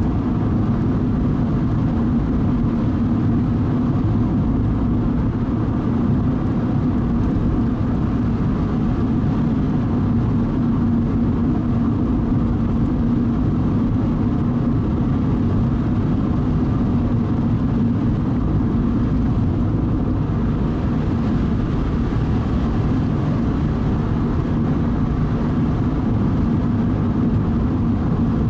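A car driving at a steady cruising speed: an even engine hum with road and tyre rumble, unchanging throughout.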